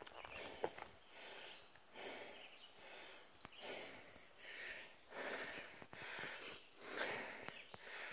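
A hiker breathing hard and rhythmically close to the microphone while walking, about one breath a second, with a few faint clicks in between.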